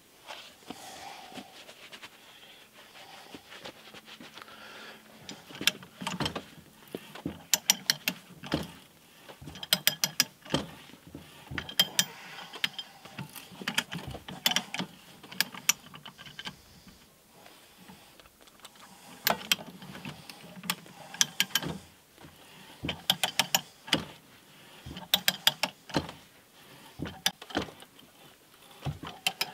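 Ratcheting hand pipe threader cutting threads on a pipe held in a vise: bursts of rapid ratchet clicks with short pauses between strokes, starting a few seconds in.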